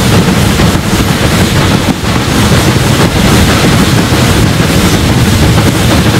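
SR Merchant Navy class three-cylinder Pacific 35028 Clan Line working hard up a 1-in-60 gradient, heard close behind its tender: its exhaust and running noise merge into one loud, steady roar.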